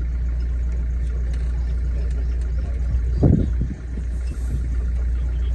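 Passenger river boat's engine running at a steady low hum, with a brief loud thump about three seconds in.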